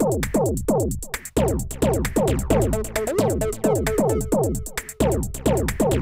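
Electronic music with a fast drum-machine beat and rapidly repeating falling pitch sweeps; held synth tones join about three seconds in.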